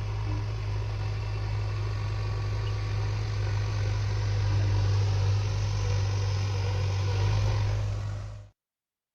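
JCB backhoe loader's diesel engine running steadily with a low drone, fading out near the end.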